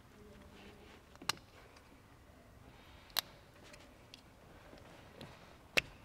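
Small plastic electrical connector clicking as it is handled and unplugged: the Golf GTE's high-voltage safety-loop connector being opened. Three sharp clicks, about a second in, about three seconds in and a sharper one near the end, with fainter ticks between.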